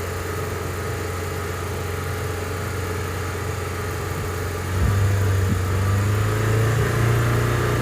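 Toyota 2.5 L inline-four engine held at a fast idle of about 3,000 rpm, then raised to about 3,500 rpm about five seconds in, its note rising and getting louder before it holds steady. The engine is running lean, and the mechanic judges from the fuel trims that there is a vacuum leak.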